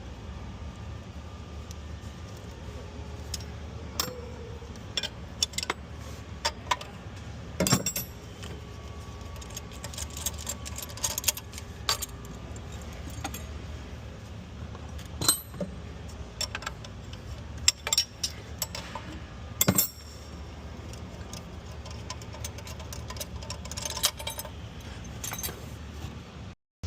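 Scattered metallic clicks and clinks of a wrench and steel fittings as the high-pressure fuel injection lines are unscrewed and lifted off a 6.7L Cummins diesel engine, over a steady low hum.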